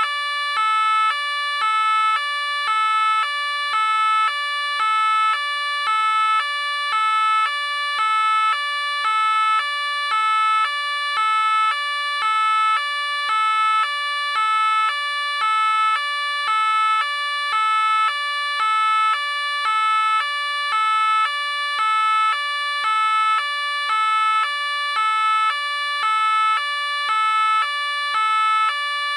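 French police two-tone siren, alternating steadily between a low and a high note, about one low-high cycle a second.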